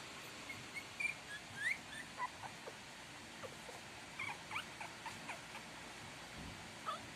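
Shih Tzu puppies about three weeks old giving short, high-pitched squeaks and whimpers, a dozen or so in two bunches, with one more near the end.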